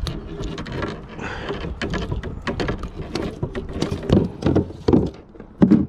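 Dense clicking, rattling and knocking as a freshly landed smallmouth bass thrashes in a mesh landing net against a plastic kayak hull while a fish gripper and net frame are handled, with several heavier thumps in the last two seconds.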